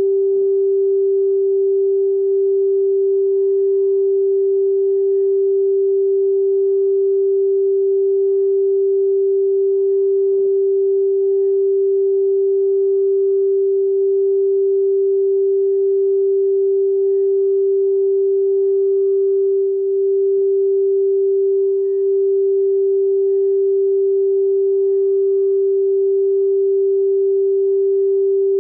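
Frosted quartz crystal singing bowl sung by circling a mallet around its rim: one steady, unbroken tone, with a faint higher overtone.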